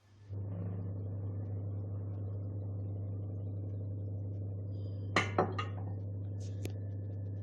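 Zanussi automatic washing machine starting its cycle, giving a steady electric hum that comes on just after the start. A few sharp clinks sound about two-thirds of the way through.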